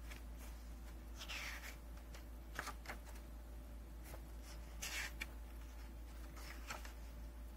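Stiff paper and glossy card rustling and sliding under hands as a book is lifted and a postcard booklet is opened, in four short bursts.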